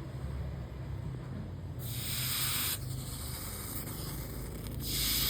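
Red-hot steel blade being quenched for hardening, hissing in two bursts, the first about two seconds in and the second near the end, over a steady low hum.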